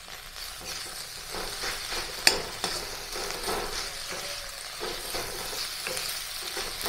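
Spiced potato and vegetable filling being stirred in a kadhai over the flame: a spoon scraping through the mash over a faint sizzle, with one sharp clink of metal about two seconds in.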